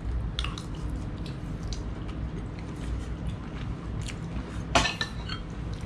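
Eating sounds at a meal table: chewing and small clicks of cutlery on plates, with a louder clink about five seconds in.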